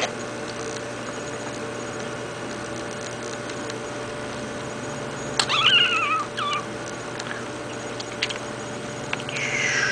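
A cat meowing: one wavering call about five and a half seconds in with a short second note right after it, and another falling call near the end, over a faint steady hum.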